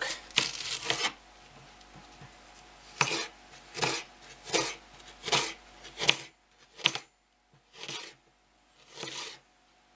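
Knife slicing an onion into half-rings on a cutting board: a series of about ten short cuts, roughly one a second.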